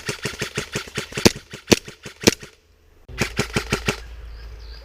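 Airsoft guns firing on full auto: a long rapid burst of about eight shots a second with three louder single shots near its end, a short break, then another burst of about a second.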